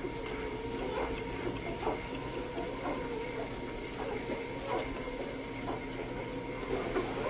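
Two-day-old chocolate Labrador Retriever puppies nursing: a faint wavering whine with short squeaks scattered throughout.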